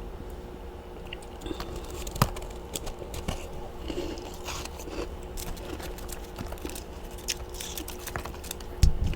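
Freezer frost being bitten and chewed close to the microphone: irregular crackling crunches, with a heavier crunch near the end, over a steady low hum.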